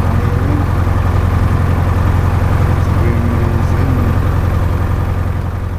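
Jodel DR1050's flat-four aircraft engine and propeller running steadily after a start, heard from inside the cockpit: a loud, even, deep drone that eases slightly near the end.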